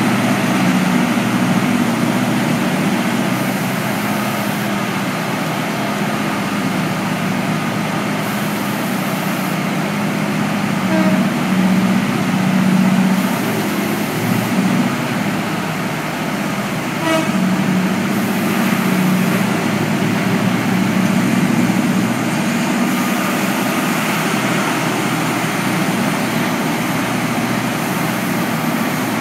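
Large diesel engines of an O&K RH400 hydraulic mining shovel and a Unit Rig MT6300 haul truck running in a steady, deep drone that swells and eases as the shovel digs and loads.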